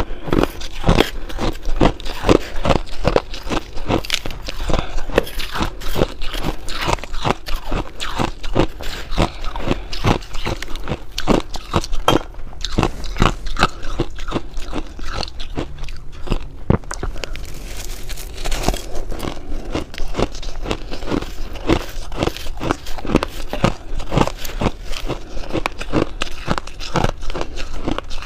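A person chewing mouthfuls of shaved ice, giving a dense, rapid run of crisp crunches throughout.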